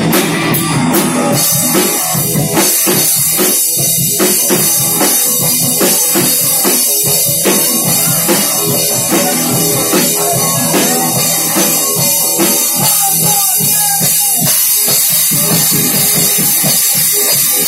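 Rock band playing live: electric guitars over a drum kit keeping a steady beat.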